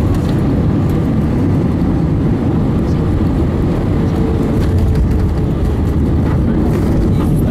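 Airbus A320-family airliner on final approach just above the runway, heard from inside the cabin: a steady, loud, deep rumble of engines and rushing air.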